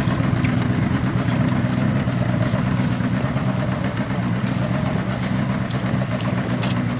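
Motorboat engine running steadily with an even, low hum.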